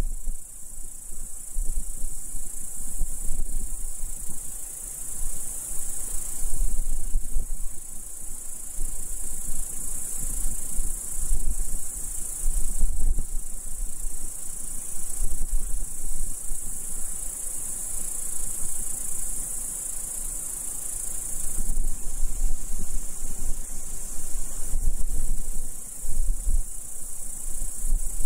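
Insects chirring in a steady, high, continuous buzz, with gusts of wind rumbling on the microphone now and then.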